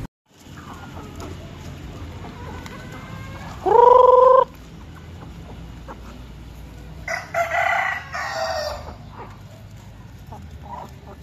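Free-range native chickens calling: a loud, clear call that rises in pitch about four seconds in, then a rooster crowing for nearly two seconds past the middle, with soft clucking between.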